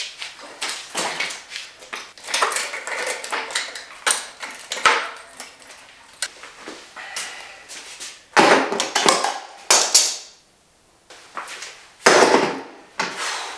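Irregular clatter, knocks and scraping of hand tools and metal parts being handled, with a brief pause about two-thirds of the way through.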